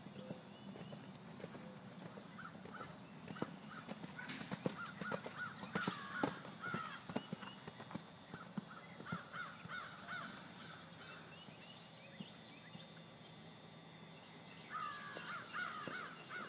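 A horse's hoofbeats cantering on sand arena footing, soft and distant, with scattered sharper clicks. A bird calls in quick runs of short repeated notes, busiest in the middle and again near the end.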